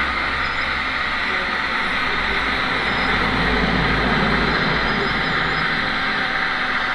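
Radio-controlled Liebherr 946 scale hydraulic excavator running, its hydraulic pump giving a steady whir as the arm works the bucket into the soil pile.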